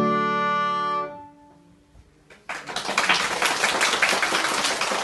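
Violin and grand piano hold the final chord of a piece, which dies away about a second and a half in. After a brief silence, audience applause starts and keeps going.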